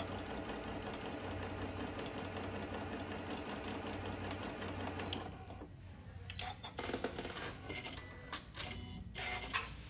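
Janome M7 sewing machine running steadily at an even speed, free-motion quilting a straight stitch through fabric and batting. It stops about five seconds in, and a few light clicks follow.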